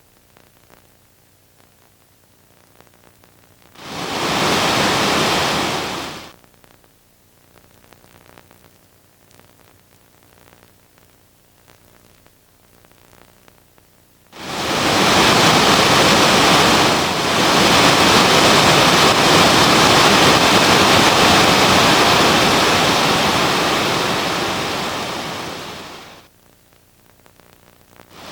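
Rushing water in two surges: a short one about four seconds in, then a long one from about halfway that slowly fades out near the end, with faint background between them.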